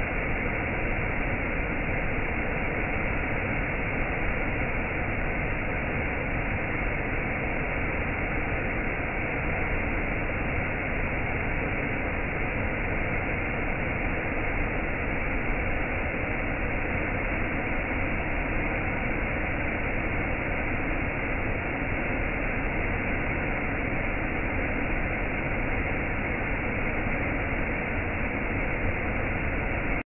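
Steady rushing noise of white water pouring over a rock ledge, even and unbroken, dull with no high hiss.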